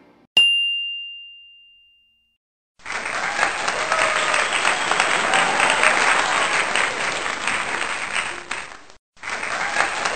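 A single bell-like ding that rings out and fades over about two seconds, then a crowd applauding from about three seconds in, breaking off briefly near the end before starting again.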